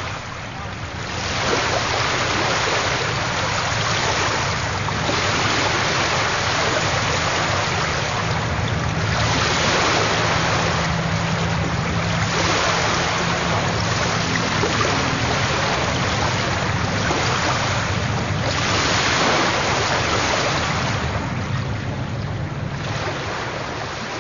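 Sea surf: waves breaking and washing in, the rush swelling and fading every few seconds.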